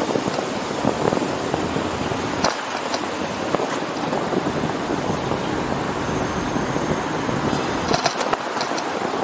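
Steady rush of wind and road noise from a bicycle riding in city traffic, with a few sharp clicks about two and a half seconds in and again near the end.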